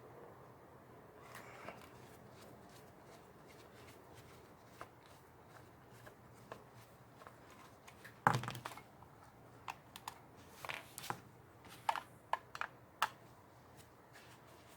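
Scattered clicks and small knocks of a Whirlpool dryer timer's case being handled and pried open, with one louder knock about eight seconds in and a run of sharp clicks after it.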